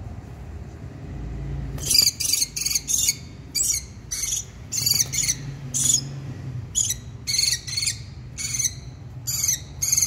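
Lutino rosy-faced lovebird giving a rapid series of short, shrill calls, about two a second, starting about two seconds in: the alarm or protest calls of a bird being held and handled.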